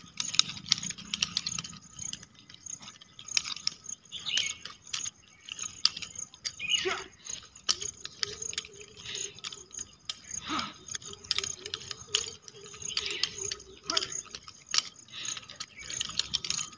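Nunchaku being swung and caught: the chain rattles and the sticks give repeated sharp clicks and clacks. A couple of short falling calls come through about seven and ten seconds in.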